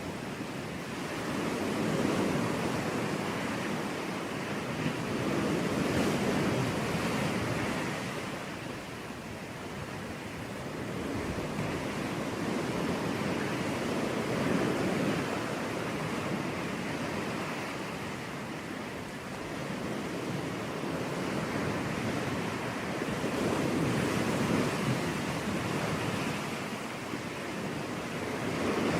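Sea waves breaking on a beach: a steady wash of surf that swells louder and falls back every several seconds.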